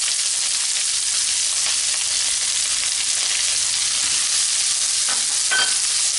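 Chopped onions sizzling steadily in hot ghee with cumin seeds in a frying pan as they are stirred with a silicone spatula. This is the start of the tadka, the onions frying in the hot fat.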